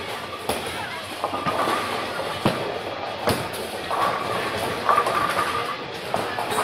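Bowling alley: a ball rolling down a wooden lane with a low rumble, and the clatter of balls and pins, with several sharp knocks; the loudest come about two and a half and three seconds in.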